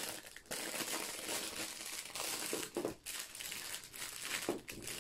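Clear plastic bag crinkling as it is pulled open and off a strip of small paint pots.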